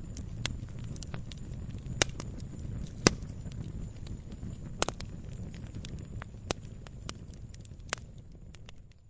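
Firewood burning: a steady low rumble of flames with quick crackles and a handful of louder sharp pops from the logs. The sound fades away at the very end.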